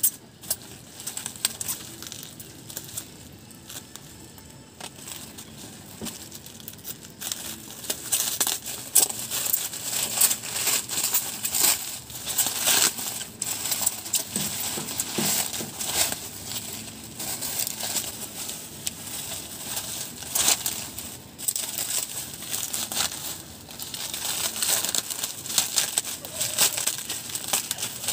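Bubble wrap and clear plastic packaging crinkling as it is handled and pulled off by hand, in a dense run of crackles that grows busier and louder about eight seconds in.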